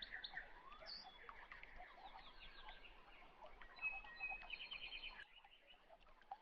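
Faint birdsong: several birds chirping and calling over one another, with a quick trill near the middle before it quietens.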